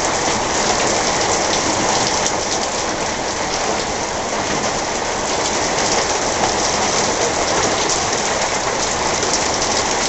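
Heavy thunderstorm downpour: rain pouring steadily and splashing on surfaces, thick with close drop patter.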